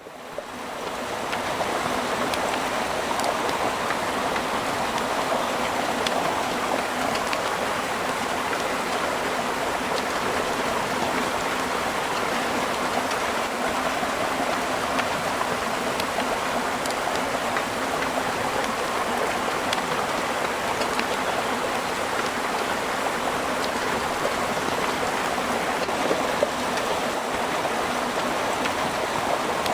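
Steady rain falling in a forest: an even, dense hiss with faint scattered drop ticks. It fades in over the first second.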